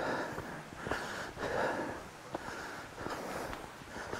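A hiker breathing hard in quick, regular breaths while walking uphill, with light footsteps on a dirt trail.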